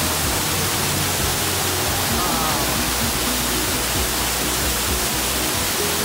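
Close-up waterfall pouring down a rock face onto boulders: a steady rush of falling water.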